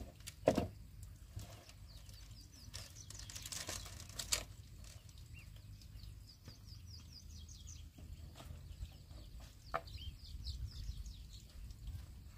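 A bamboo pole knocks once against the frame about half a second in, followed later by a few lighter knocks. Birds chirp in quick repeated falling notes through much of the rest.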